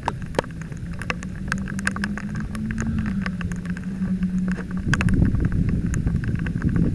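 Engine of a rigid inflatable boat running steadily, its pitch rising a little and then settling, with many sharp ticks of rain striking the boat and the camera. About five seconds in, a louder rush of wind and water comes up.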